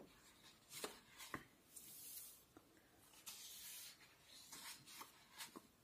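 Faint swish and rustle of coloring-book pages being turned by hand, with a few soft paper ticks in between.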